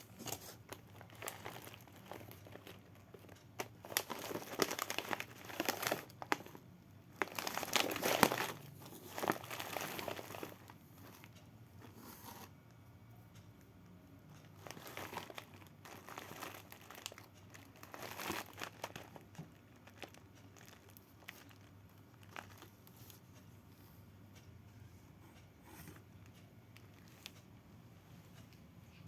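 Parcel packaging being crumpled, crinkled and torn open by hand in irregular bursts, loudest in the first ten seconds, then softer rustles.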